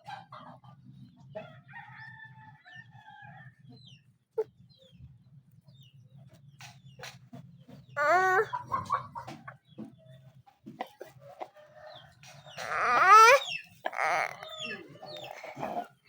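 Chickens calling over a low steady hum, with a rooster's wavering, pitched call about halfway through and a louder, second-long one near the end.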